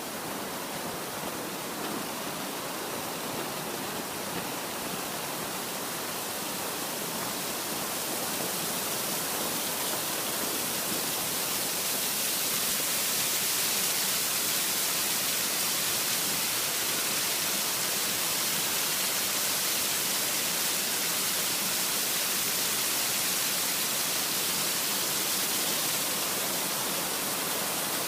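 Steady rushing of river water, growing a little louder and brighter about ten seconds in.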